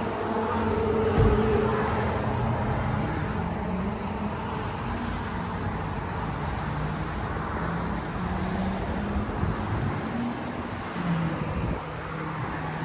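Motor vehicle running with steady road and traffic noise, and a low engine hum. There is a single knock about a second in.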